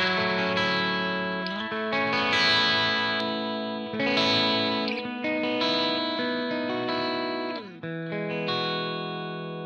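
Gibson Custom Shop '58 Les Paul reissue electric guitar played through a 100-watt Divided by 13 JJN amp on a clean-ish setting with a touch of breakup: a series of strummed chords, each struck and left to ring out and fade.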